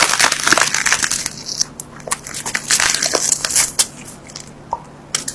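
Crunching of food being bitten and chewed close to the microphone: a dense run of crisp cracks that thins out over the last couple of seconds.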